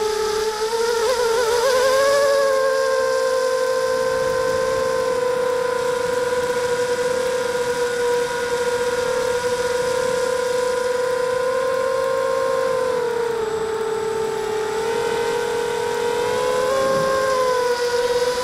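Small FPV drone's electric motors and propellers whining, heard through its onboard camera: a steady pitched hum that wavers about a second in, drops slightly in pitch partway through and rises again near the end.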